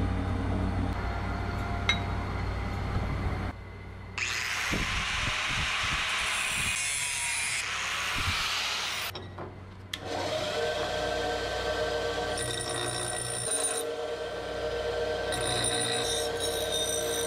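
A steady low hum, then an angle grinder cutting through a steel bicycle handlebar stem clamped in a vise, a dense hiss for about five seconds. After a short break a bench grinder runs, its wheel grinding the end of a steel tube, a steady whine over grinding noise.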